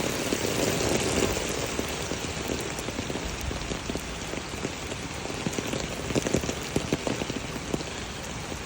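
Floodwater and rain splashing on a street: a steady rush of water dotted with many small spatters.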